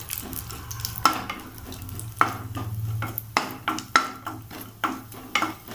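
Spatula stirring and scraping chopped cashews and almonds as they fry in a little ghee in a kadai, with a soft sizzle and sharp scrapes roughly once a second.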